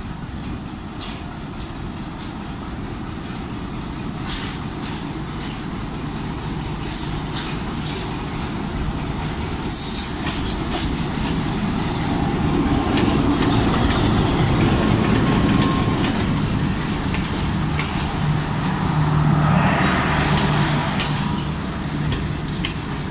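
Pakistan Railways HBU-20 diesel locomotive running slowly past during shunting. Its low engine rumble builds as it approaches, holds a steady tone as it goes by, and then passenger coaches roll past behind it, with a brief louder swell of rail noise near the end.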